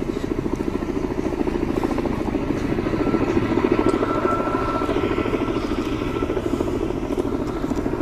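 Firefighting helicopter's rotor chopping in a rapid, steady beat as it flies back over the hill for another water-drop run.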